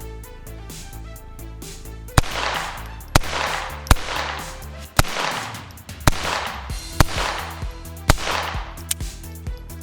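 Star Model F .22 LR semi-automatic pistol fired seven times, about one shot a second, each crack followed by a long echo. Background music plays underneath.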